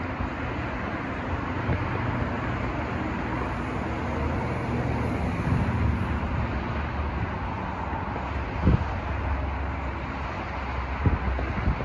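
Steady low rumble of road traffic, with a few distant firework bangs: one sharp bang about three-quarters of the way through and two more near the end.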